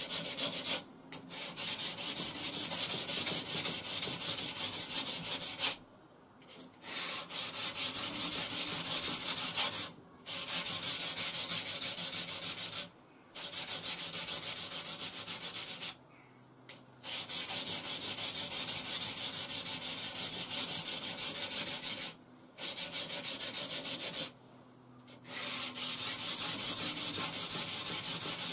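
Puukko knife blade stroked rapidly back and forth on an old worn grinding belt used as abrasive paper: a fast, dry scratching rasp in runs of several seconds, broken by brief pauses.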